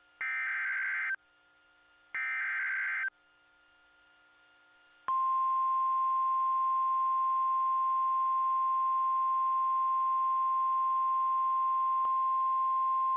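NOAA Weather Radio emergency alert signal: two buzzing bursts of SAME digital header data, each about a second long and a second apart, then about five seconds in the steady 1050 Hz warning alarm tone begins and holds.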